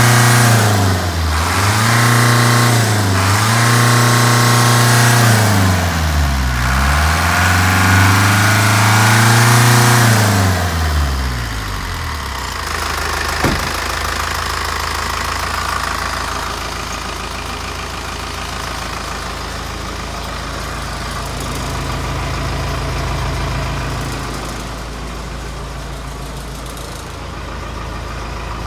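Hino Dutro truck's diesel engine revved up and held, its revs sagging and climbing back three times before dropping to a steady idle about eleven seconds in. A single sharp click sounds shortly after it settles.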